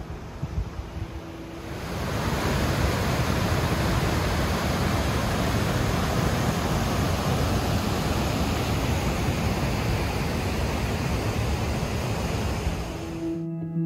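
Loud, steady rush of water noise. It starts abruptly about two seconds in and cuts off just before the end.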